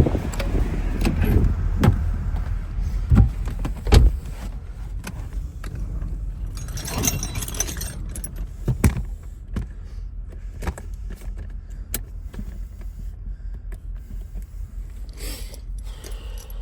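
Scattered metallic clicks and clinks of hand tools and small metal parts being handled, with a rustling jangle about seven seconds in and a shorter one near the end. A low rumble underlies the first few seconds.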